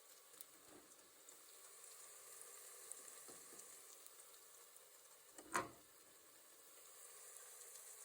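Faint sizzling of food frying in oil in a pan, with small scattered crackles. A single brief knock about five and a half seconds in.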